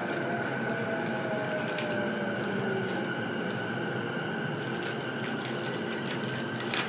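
Onboard running sound from a motor car of a JR East E233-7000 series electric commuter train. It is a steady high whine with a lower tone gliding down in pitch over the first two seconds or so, scattered clicks from the wheels on the rails, and one sharp click just before the end.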